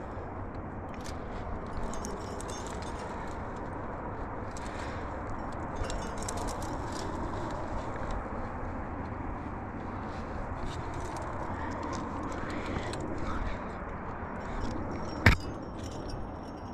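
Metal climbing gear, carabiners and cams on a trad rack, clinking and jangling at intervals over a steady background rush, with one sharp clack about a second before the end.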